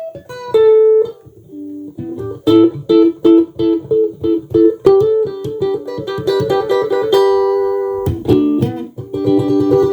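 Tomson Spirit Sounds Stratocaster electric guitar being played: single picked notes, then a run of quick, evenly repeated picked notes. About seven seconds in a note is held, followed by a few fast notes and a ringing chord near the end.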